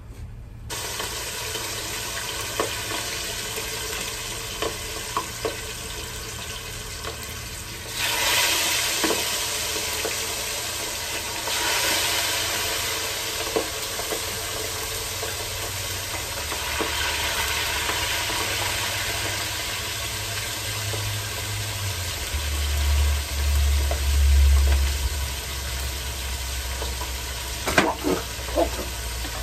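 Fish frying in hot oil in a deep pot on a propane camp stove: a steady sizzle with scattered pops and spatters of oil, which grows louder about eight seconds in. A low rumble sits under it for a few seconds after the middle.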